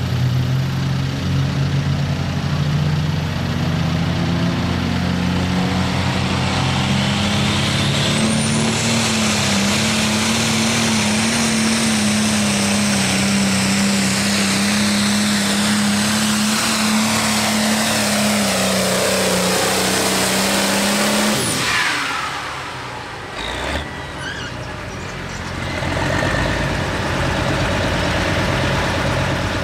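Turbocharged diesel engine of a John Deere 6030 Limited Pro Stock pulling tractor at full throttle under load on the sled, with a high turbo whistle over a heavy engine note. The note sags as the tractor bogs near the end of the pull. About 21 seconds in the engine is throttled off abruptly and runs much quieter.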